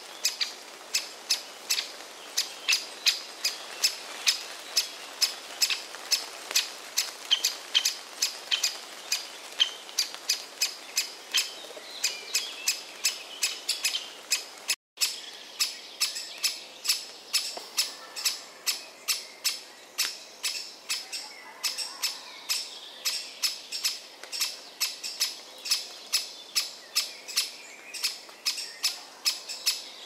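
Great spotted woodpecker nestling calling from its nest hole: a steady run of short, high chirps, about two or three a second, the begging calls of a chick waiting to be fed.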